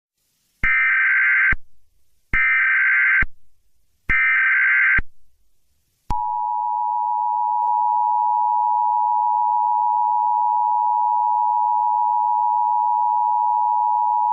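Emergency Alert System tones: three short bursts of SAME header data, each just under a second, then the steady two-tone attention signal for about eight seconds, which marks the start of a new alert.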